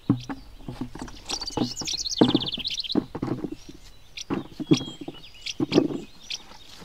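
Birds chirping, with a fast trill about two seconds in, over a run of irregular knocks and thumps, the loudest sounds, a few a second at times.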